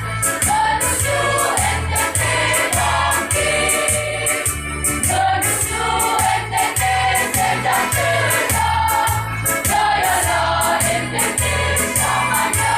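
A school choir singing a march in several voices, over accompaniment with a steady bass beat of about two beats a second and a rhythmic high shimmer like a tambourine.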